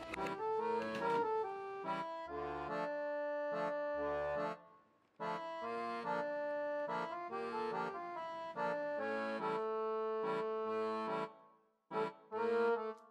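Background instrumental music: an accordion melody over held chords, with two short pauses, about five seconds in and near the end.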